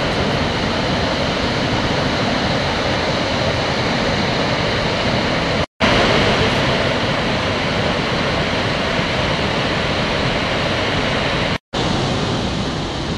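Steady rush of Victoria Falls' water pouring down the gorge, broken twice by a brief silence.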